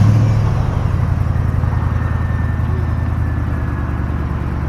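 1998 Ford Explorer's 5.0-litre V8 idling just after starting: a steady low running sound, loudest at first, that settles a little lower over the first seconds.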